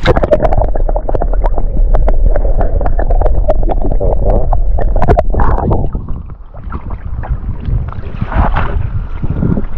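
Muffled water sloshing around a camera held under the river surface in a whitebait net, with a quick run of clicks and knocks. About five seconds in it comes up into clearer splashing and gurgling water.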